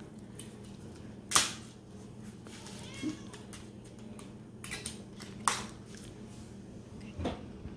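Sharp clicks and taps of a plastic wet cat food tray knocking against a paper plate as the pâté is emptied out and the tray is put down. There are four or so, the loudest about a second and a half in.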